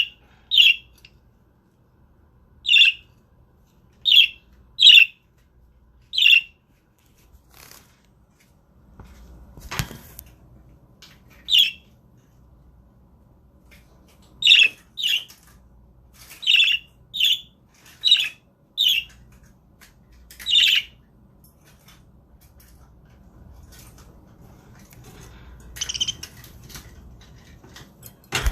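Budgerigar giving short, sharp chirps one at a time, about fifteen of them at uneven gaps, with a single sharp knock about ten seconds in and some scratchy rustling near the end.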